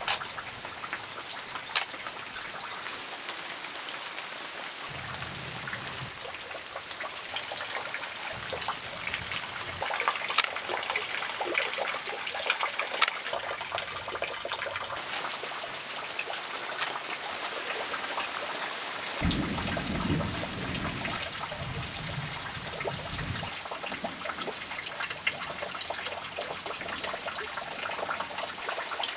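Steady rain falling, with close drops ticking sharply on nearby surfaces. A low rumble of thunder comes a couple of times, the longest about twenty seconds in.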